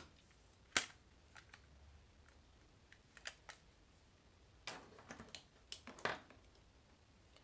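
Faint scattered clicks and taps of makeup tools and containers being picked up and handled: a sharp click at the start and another just under a second in, then a flurry of small clicks about five to six seconds in.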